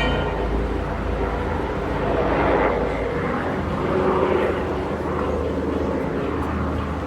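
Agusta Caweel CW-86 aircraft engine running steadily: a constant low drone with a hiss that swells and fades a few times.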